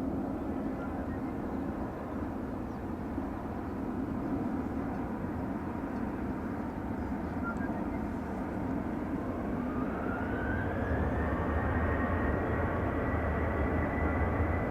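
Jet engines of a Boeing 737-800 running with a steady low rumble; about nine seconds in a whine rises in pitch and then holds higher as the engines spool up to takeoff thrust.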